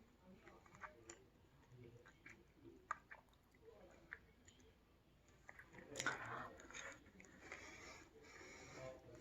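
Faint, close chewing of a Philadelphia sushi roll, with small wet mouth clicks and smacks, and a louder bite or mouth noise about six seconds in.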